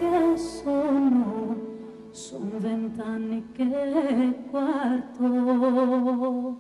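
Woman singing long held notes with vibrato, without clear words, over a live band's accompaniment.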